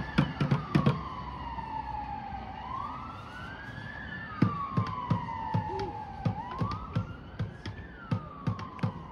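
A wailing siren sound effect, rising and falling in pitch about every four seconds, with sharp drum strokes over it. There is a cluster of loud hits in the first second, then steady strokes about twice a second from midway on.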